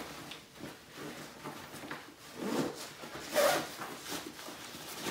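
Haley Strategic Flatpack nylon backpack being collapsed by hand: fabric rustling and zipper scraping, with louder scrapes about two and a half and three and a half seconds in.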